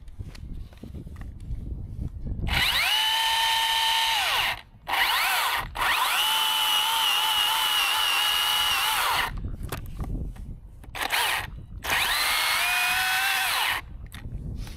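Battery-powered top-handle chainsaw run in several bursts as it cuts through the dead cherry trunk. Its high whine sags in pitch under load, falls away as the trigger is released, and stops completely between bursts.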